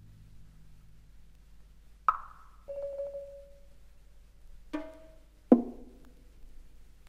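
Sparse contemporary chamber music: a sharp, dry struck note about two seconds in, a held mid-pitched tone, then two more struck notes close together, the last one the loudest and ringing low as it fades, with near quiet between the events.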